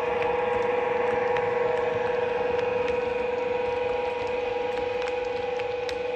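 OO-gauge model Class 92 electric locomotive with Caledonian Sleeper Mk5 coaches running past close by: a steady hum from the locomotive, with light ticks of wheels on the track, growing a little fainter towards the end.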